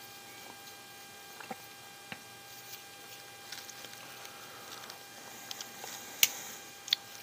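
Light clicks and taps of a small RC crawler axle housing, its screws and a hex driver being handled and worked apart by hand, with a faint steady electrical hum underneath. The sharpest click comes about six seconds in, with another just before the end.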